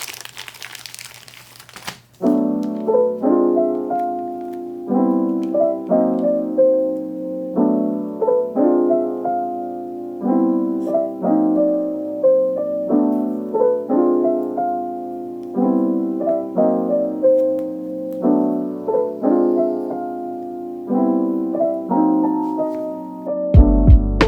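Soft lo-fi background music: a gentle piano plays a repeating pattern of chords and melody notes from about two seconds in, and a deep bass and beat join near the end.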